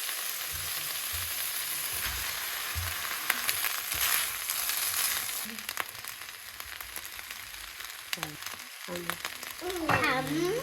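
Fried rice sizzling in a hot pan as it is stirred, with scattered clicks of the utensil. The sizzle is louder at first and drops to a quieter hiss about halfway through.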